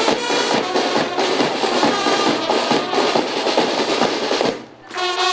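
Marching brass band playing, brass over a steady beat of snare and bass drums. The music breaks off for a moment near the end, then comes back in.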